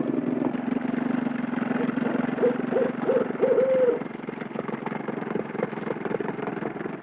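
Boat motor running steadily, with an owl hooting about four times from about two and a half to four seconds in.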